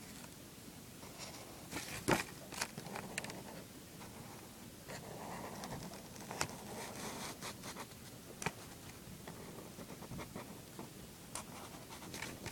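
Scratching of a drawing implement on paper: soft strokes with scattered small clicks and taps.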